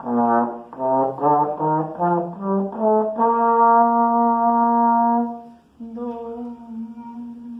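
Tenor trombone playing an ascending scale of about an octave, ending on a long held top note, then sounding that note again more softly.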